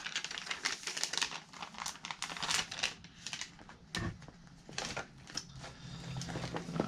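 Plastic lure packaging crinkling and rustling in the hands as fishing lures are handled and unpacked, with a soft thump about four seconds in.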